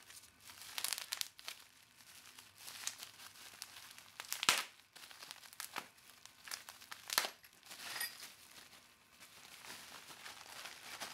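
Bubble wrap and plastic wrapping crinkling as hands unwrap a part, with irregular rustles and two sharper crackles, about four and a half and seven seconds in.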